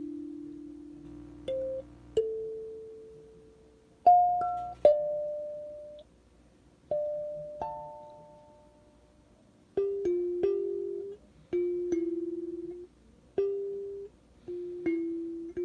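Kalimba played solo: a slow melody of plucked metal tines, each note starting sharply and ringing out as it fades, some notes sounded in pairs. The notes come closer together in the second half.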